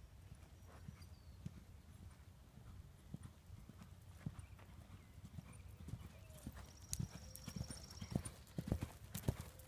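Horse's hoofbeats thudding on sand footing as a ridden horse moves around the arena, growing louder as it passes close about two-thirds of the way in.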